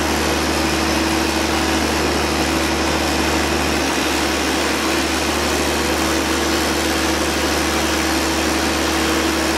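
Lovol 1006TANG six-cylinder gas engine of a 64 kW biogas generator set running at a steady speed: an even drone with a steady tone through it.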